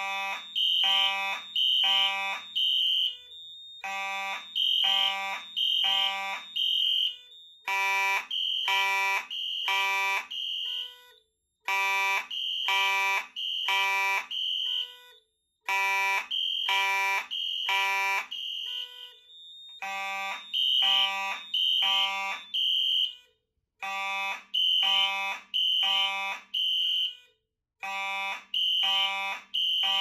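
Fire alarm horns on linked Simplex panels sounding in alarm, in the temporal-three pattern: three short blasts, a pause, and again, repeating. At least two horns are heard, blasting out of step with each other.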